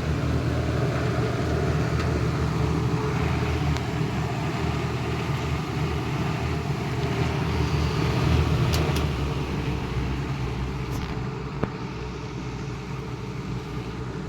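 A 12-inch Edison box fan running steadily on high speed: a low motor hum under the rush of air from the blades. The blades have been heat-straightened back to true, so it runs smoothly without wobble.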